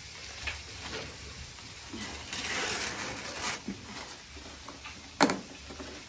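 Handling noises while a table is set: a soft rustle for about a second, then one sharp knock a little after five seconds in.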